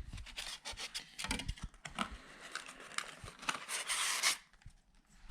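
Rustling and crinkling of packaging, with small clicks and knocks, as a new radio and its parts are handled out of the box. A longer rustle comes near the four-second mark, then it goes quieter.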